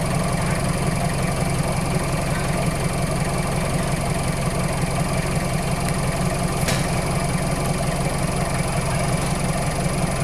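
Off-road 4x4 vehicle engine idling steadily, with a single light click about two-thirds of the way through.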